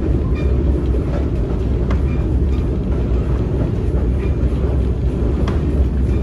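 Passenger train rolling along the track with a steady low rumble, broken by irregular clicks of the wheels over the rails.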